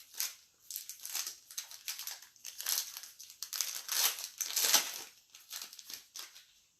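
Plastic wrapping crinkling and tearing in irregular bursts as a sealed trading card box is unwrapped and opened.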